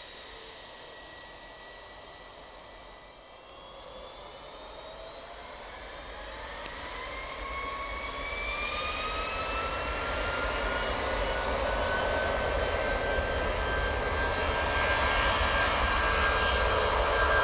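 Boeing 757 freighter's two turbofan engines spooling up to takeoff thrust: a whine starts rising about four seconds in and climbs for several seconds before levelling off, while the jet noise grows steadily louder as the aircraft starts its takeoff roll.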